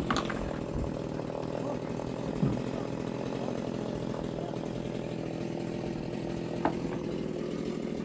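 A small engine runs steadily with an even low drone, and a couple of faint knocks sound over it.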